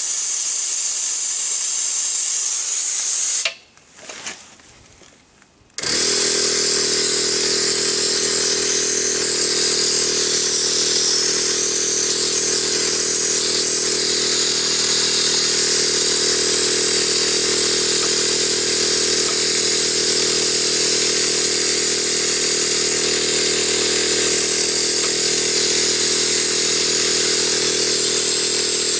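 Compressed air hissing out of a nearly empty air tank; it stops about three and a half seconds in. About two seconds later the 12-volt air compressor starts and runs steadily.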